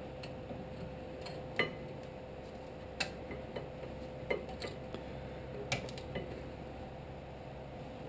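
Light metallic clicks and clinks, about half a dozen spaced a second or so apart, as a new rear disc-brake pad is worked into the caliper bracket against its metal abutment clip, over a low steady hum.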